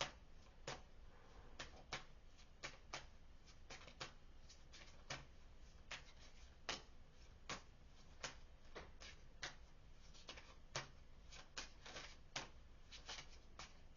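Tarot cards being shuffled by hand: soft, irregular card clicks and taps, about one or two a second.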